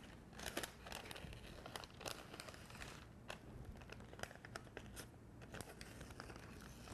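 Paper cake liner being torn and peeled away from the side of a baked cake by hand: faint, irregular crinkling and crackling with small tearing sounds throughout.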